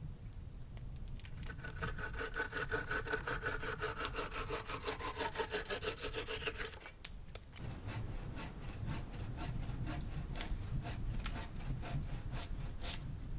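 Hand saw cutting through wood in quick, even back-and-forth strokes. The blade rings with a tone that slides slightly lower as the cut goes on. The sawing breaks off briefly about seven seconds in, then starts again.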